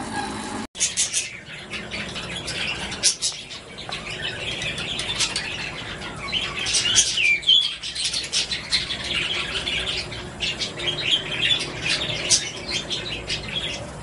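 Parrots in an aviary chirping and chattering in a dense run of short, quick calls, with one cockatiel in view. The sound cuts out for an instant under a second in.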